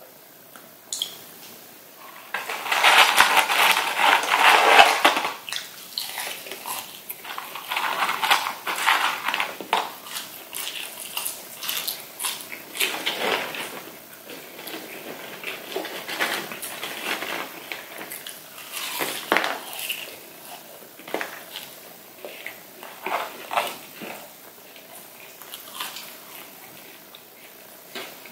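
Close-miked handling of crispy McDonald's fries and chicken nuggets: irregular crackling, rustling and small clicks as the food is picked up and dipped in plastic sauce cups. The loudest stretch of crackling comes a few seconds in.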